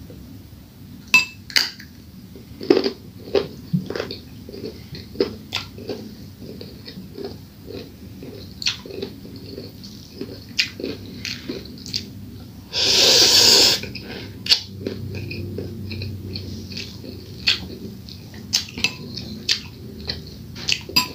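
Close-up eating sounds: crunching bites of a raw carrot and a metal spoon clinking and scraping in a bowl of fried noodles. A louder rush of noise lasting about a second comes about halfway through.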